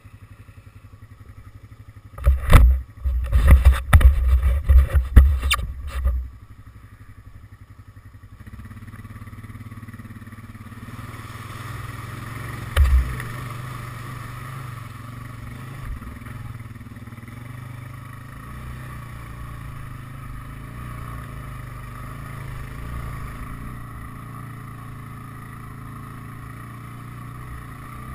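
ATV engine idling quietly, broken by a few seconds of loud knocking and rumbling about two to six seconds in. From about eight seconds in, the engine runs steadily under load as the quad fords a shallow stream and climbs a steep grassy track, with a single thump a few seconds later.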